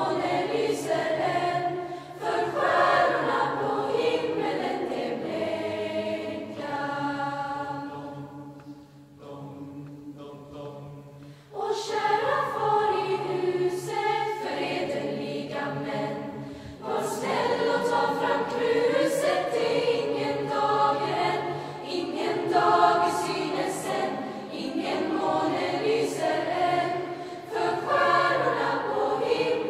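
Mixed youth Lucia choir of boys and girls singing in a church. The singing thins to a quieter passage about a quarter of the way in, then the full choir comes back in loudly.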